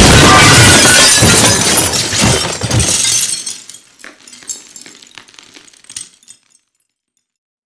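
Glass smashing: a loud crash that carries on for about three seconds, then scattered shards tinkling and settling, dying away about six and a half seconds in.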